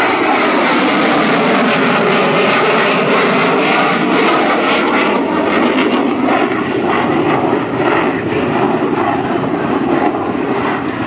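Loud, steady jet roar of a CF-18 Hornet fighter's twin General Electric F404 turbofans as it climbs steeply away after takeoff. Its tone shifts in slow sweeping waves, and it eases slightly over the last few seconds.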